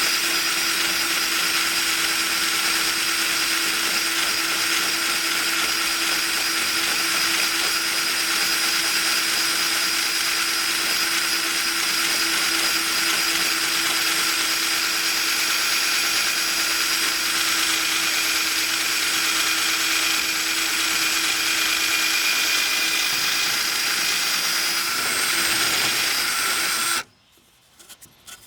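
Corded electric drill spinning a rotary rasp bit against wood, with a steady motor whine and a coarse grinding rasp as the bit is worked back and forth to cut a slot. It cuts off suddenly near the end.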